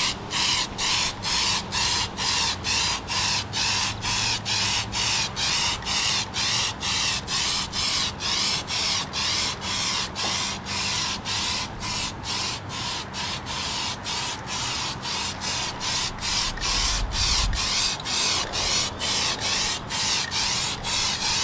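Aerosol can of etch primer spraying onto a bare aluminium boat hull, hissing in quick, even pulses, about two or three a second.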